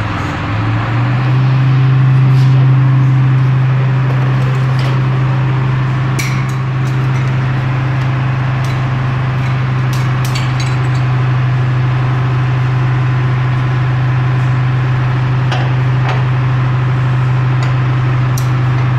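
An engine idling with a steady low hum, with a few sharp metal clanks and knocks from work on the truck chassis.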